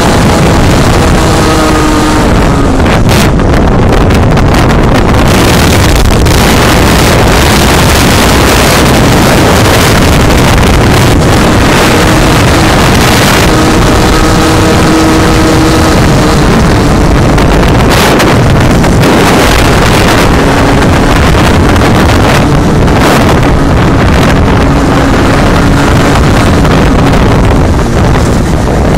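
Strong wind buffeting the microphone of a moving small motor vehicle. The engine's pitched hum comes through in stretches, rising a little before the middle and holding steady through much of the second half.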